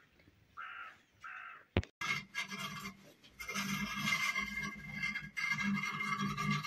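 A crow caws twice. Then a knife scrapes steadily around the rim of a large metal tray of dried kaymak (clotted cream), loosening the set cream from the edge, for the last four seconds or so.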